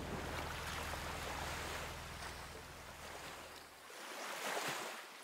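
Water lapping and washing against a boat's hull over a low steady hum. The hum cuts off about four seconds in, and a louder wash of water follows near the end.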